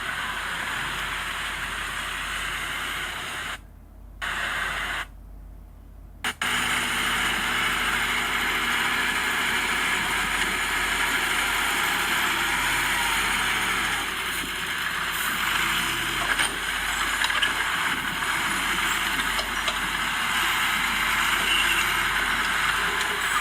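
Heavy diesel earthmoving machinery running steadily at work. The sound drops away briefly twice in the first six seconds.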